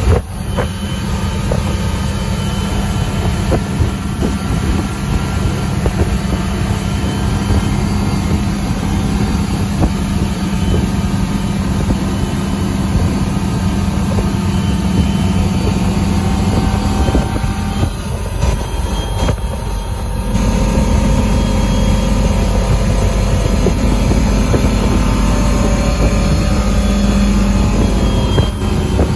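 Ski boat running at speed while pulling a water skier: a steady engine rumble with water rushing off the hull and wake, and wind on the microphone. The low rumble grows louder about two-thirds of the way through.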